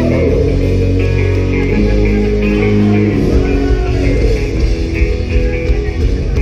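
Pop-punk band playing live, with electric guitar and bass to the fore.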